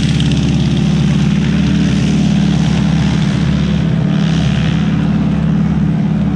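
Nine-cylinder Pratt & Whitney R-1340 radial engine of a North American SNJ (Navy T-6 Texan) trainer running steadily at taxiing power, loud and even, with a rapid pulsing beat.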